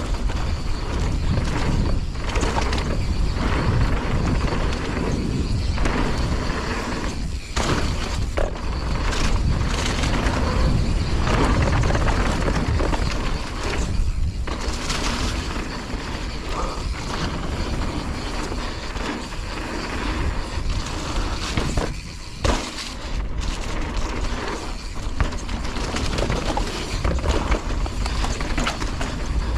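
Mountain bike descending a dirt trail: tyres rolling over the ground and the bike rattling, with frequent knocks over bumps, under steady wind buffeting the action camera's microphone.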